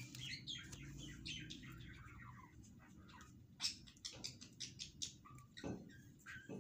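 Sliced onions frying golden-brown in hot oil in an aluminium pot, crackling and sizzling, as a metal spatula scrapes through them. The spatula knocks against the pot a couple of times, about halfway and near the end.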